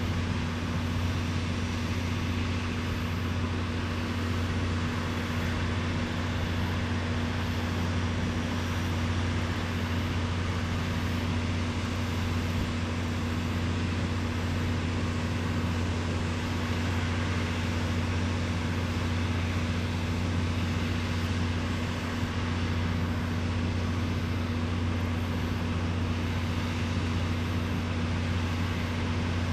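An engine running steadily at idle, a constant low hum that does not change.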